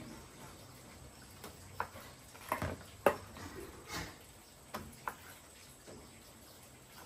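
Kitchen knife cutting pork on a plastic cutting board: a series of irregular knocks as the blade strikes the board, the loudest about three seconds in.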